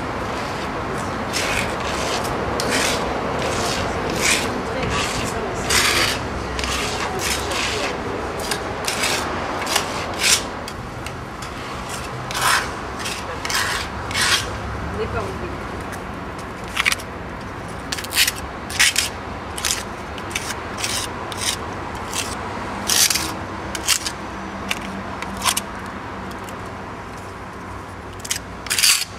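Repeated short scraping or rubbing strokes, irregularly spaced, over a steady background noise.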